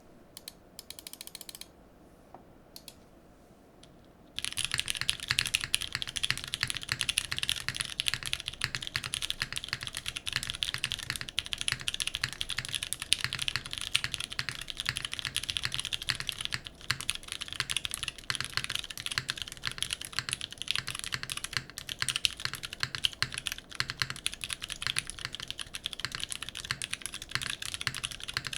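Mechanical keyboard with vintage Cherry MX Brown switches on a carbon fibre plate and GMK keycaps, being typed on continuously in a steady stream of keystrokes. The typing starts about four seconds in, after a few faint short sounds.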